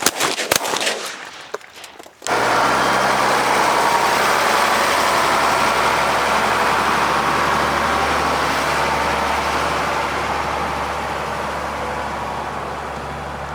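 Several shotgun blasts in quick succession over the first two seconds. They cut off suddenly into a steady rushing noise with a low hum that slowly fades.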